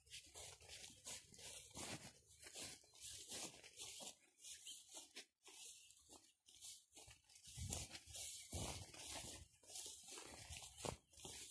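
Irregular rustling and crackling of footsteps and paws moving through cut meadow grass, with a few louder swishes near the middle and near the end.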